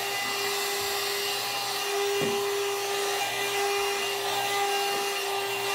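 One-step hot-air hair dryer brush running on its low setting: a steady whirring hum at one constant pitch over a soft rush of air.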